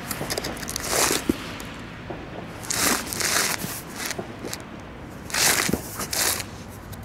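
Cardboard firework battery box being handled and turned, rubbing and scraping against the hand in a few short bursts.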